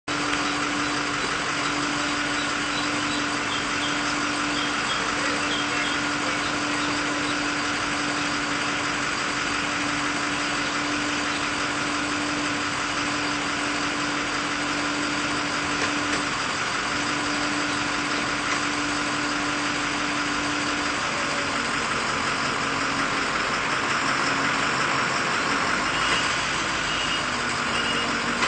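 Tree-cutting crew's engine-driven equipment running steadily, a continuous engine drone with a held tone that drops slightly in pitch about 21 seconds in.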